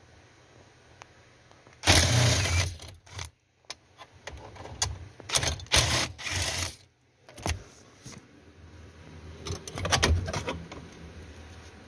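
Battery-powered socket driver running in several short bursts as it spins out the bolts of a 2016 Toyota Camry's driver knee airbag assembly. The longest and loudest run is about two seconds in; the later ones are briefer.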